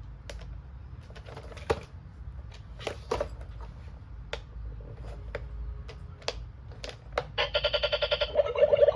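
Light plastic clicks and taps from toy kitchen pieces being handled. About seven seconds in, an electronic toy sound starts: a loud, rapid ringing trill.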